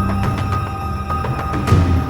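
Background music: a held high tone over deep, sustained low notes, with a heavier low hit near the end.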